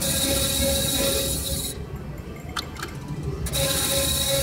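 Three-reel Double Jackpot Blazing 7's slot machine spinning twice: a hissing whir with a steady tone runs for nearly two seconds and stops, a couple of clicks follow, and a second spin starts about three and a half seconds in. A low hum of casino noise lies beneath.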